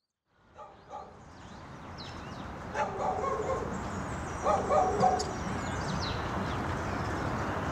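A dog barking in a few short bursts over a steady background hiss, with birds chirping now and then. It all fades in from silence at the start.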